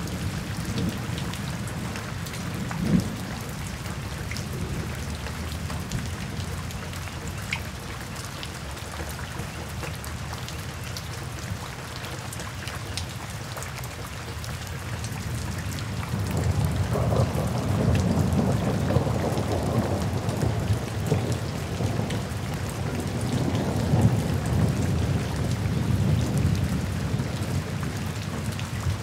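Steady rain falling on forest foliage, with a few single drops ticking close by. A low rumble swells underneath about halfway through and stays louder to the end.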